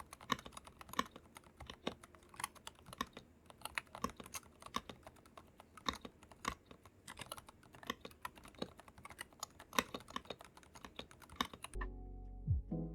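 Typing on an Akko 3087 V2 mechanical keyboard: fast, irregular key clicks from its factory-unlubed switches. Background music comes in near the end and the typing stops.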